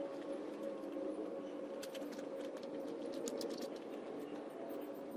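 Steady machine hum of an air compressor motor running, with scattered faint light ticks and taps.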